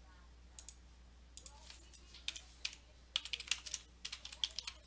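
Typing on a computer keyboard: a few scattered key clicks, then a quick run of keystrokes over the last couple of seconds.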